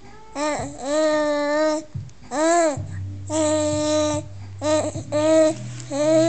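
Young baby babbling and cooing: a run of about six drawn-out vowel sounds, some arching up and down in pitch.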